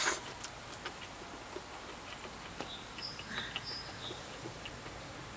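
Quiet outdoor background: a faint steady high insect hum with a few short bird chirps around three seconds in, and soft clicks from chewing and chopsticks.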